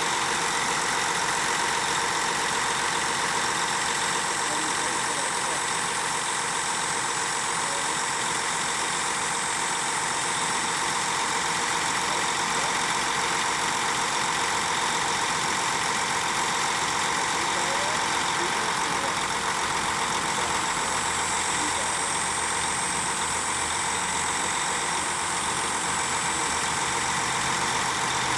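600 HP John Deere diesel power unit of a hydrostatically driven pump truck running steadily at a constant speed while it powers the hydraulic boom.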